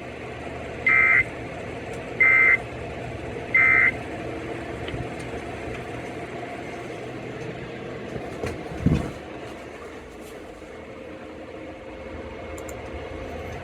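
Three short, buzzy two-tone data bursts from a NOAA Weather Radio broadcast, about 1.3 s apart: the Emergency Alert System SAME end-of-message code that closes a warning. They play over steady radio hiss, and a single low thump comes about nine seconds in.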